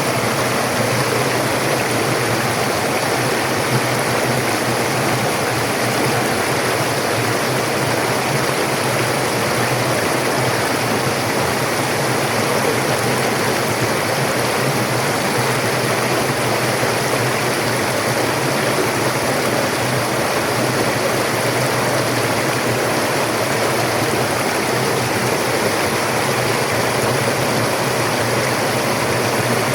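Forest river or stream flowing over rocks: a steady, unbroken rush of water.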